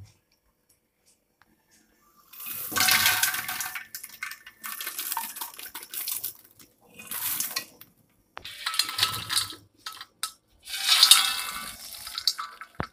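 Popped popcorn poured and shaken into a steel bowl, rattling and scraping against the metal in about five separate bursts, the loudest near the end.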